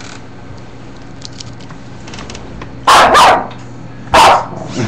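Chihuahua barking: two sharp barks in quick succession about three seconds in, then a third about a second later.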